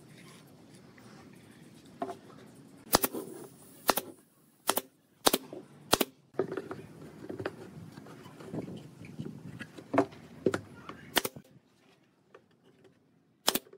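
Pneumatic nail gun firing nails into wooden boards: about nine sharp shots at uneven spacing, with a pause in the middle filled by quieter handling knocks of the wood.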